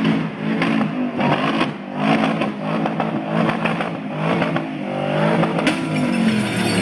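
Muscle car engine revving, its pitch rising and falling several times, with crackling on top.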